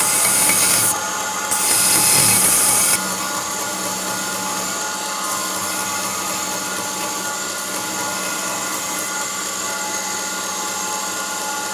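2x72 belt sander running steadily with a hum, while a stainless Damascus steel ring slug is pressed against the belt twice in the first three seconds, giving a louder, high-pitched grinding hiss, to take off the thin knife edge left around it from drilling.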